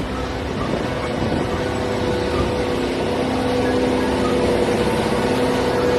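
SNCF BB 15013 electric locomotive close by at the platform, giving a steady mechanical hum with a couple of held tones over a low rumble, slowly growing louder.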